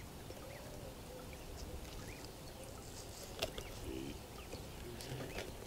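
Faint background: a low steady rumble, a few faint bird chirps, and a single sharp click about three and a half seconds in.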